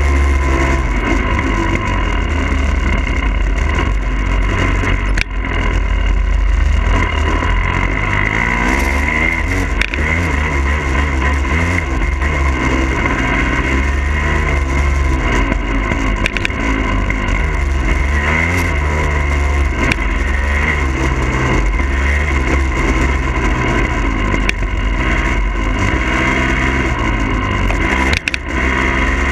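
2022 Husqvarna TE300i's fuel-injected single-cylinder two-stroke engine running and revving up and down repeatedly as the dirt bike is ridden, heard from a camera mounted on the bike, with heavy wind rumble and an occasional knock.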